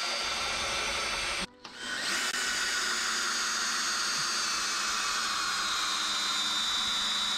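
Cordless DeWalt drill boring a long bit into a pine post, its motor whining steadily. It stops for a split second about one and a half seconds in, restarts, and the whine then slowly drops in pitch as the bit works into the wood.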